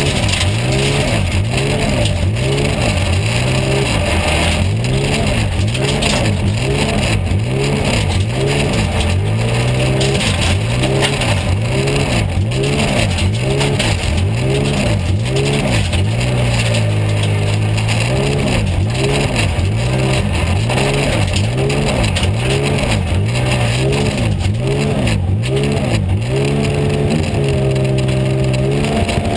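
Porsche 911 GT3 R's flat-six engine running at low revs inside the car, its pitch swelling up and down in a quick, regular rhythm of about one and a half swells a second. The pitch holds steady for a couple of seconds around the middle and again near the end.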